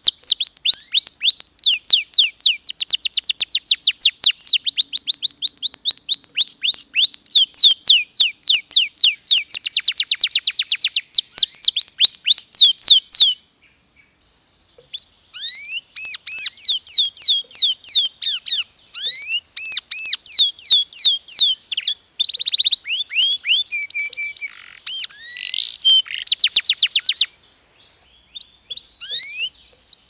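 Domestic canary singing: long, fast trills of repeated high sweeping notes, about seven a second. The song breaks off briefly a little before halfway, then resumes in shorter, more varied phrases.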